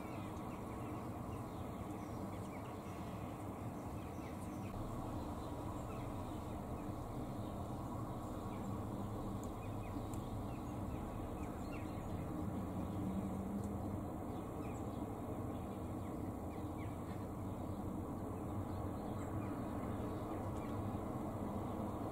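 Faint, scattered calls of Eurasian magpies over a steady low outdoor rumble.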